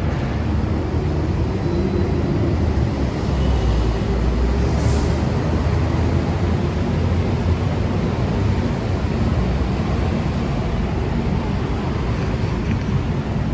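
Steady low engine rumble of heavy vehicles in city traffic, with a brief hiss about five seconds in.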